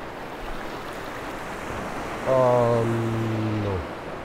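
Small waves of the North Sea washing over a rocky shore in a steady rush. About two seconds in, a single loud, low, steady-pitched call is held for about a second and a half and then cuts off.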